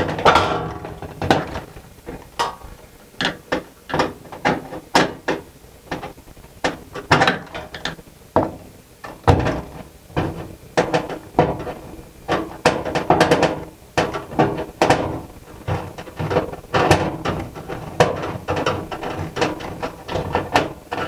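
Screwdriver driving a ballast mounting screw into the sheet-metal fluorescent fixture: an irregular run of short clicks and scrapes, one or two a second.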